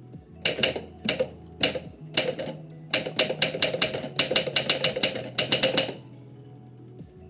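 Typewriter keys striking: a few scattered keystrokes, then a quick run of typing that stops about six seconds in.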